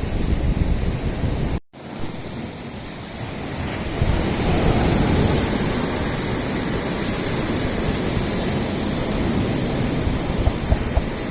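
Black Sea surf washing against the shore, with wind buffeting the microphone. The sound cuts out completely for an instant about a second and a half in.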